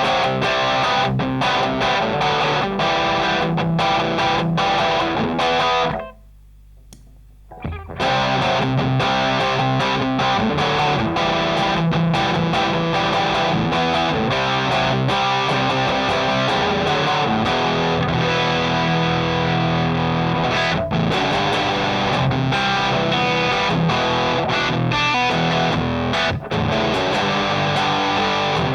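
Electric guitar played through a Rullywow Plexicruise, a Marshall-voiced JFET distortion pedal (a Plexidrive clone), giving a thick, bassy distorted tone. About six seconds in the playing stops for roughly two seconds, leaving only a low hum, then starts again.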